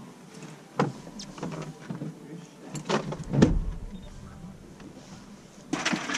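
Knocks and thumps of handling on a fiberglass boat deck while a freshly caught crappie is dealt with, the loudest thump about three and a half seconds in and a short clatter near the end, over a faint steady hum.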